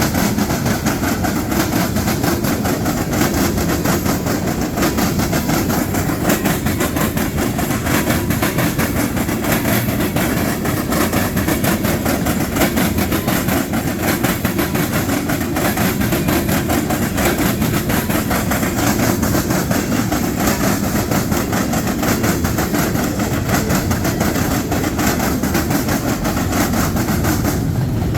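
Freight train cars rolling past, a loud, steady rumble and rattle of wheels on rail.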